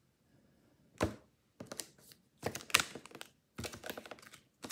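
A deck of affirmation cards being shuffled and handled on a tabletop: a sharp tap about a second in, then three runs of quick clicks and taps as the cards are shuffled.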